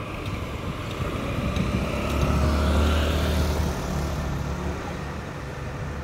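A motor vehicle drives past close by, its engine rumble growing louder to a peak about halfway through and then fading away.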